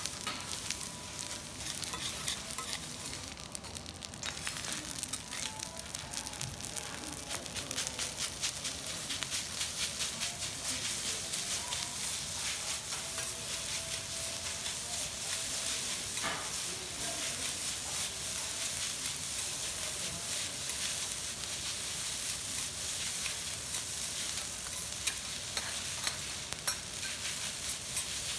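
Garlic rice with egg sizzling on a steel teppanyaki griddle while a metal spatula and scraper chop, scrape and tap against the plate in quick, irregular clicks.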